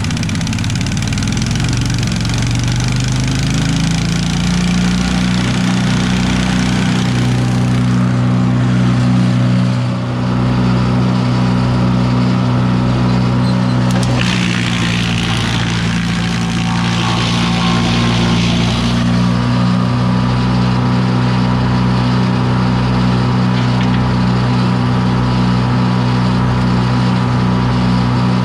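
Gas-engine wood chipper running, its engine pitch rising over the first few seconds as the engaged flywheel comes up to speed, then running steadily at speed. A stretch of added hissing noise comes about halfway through.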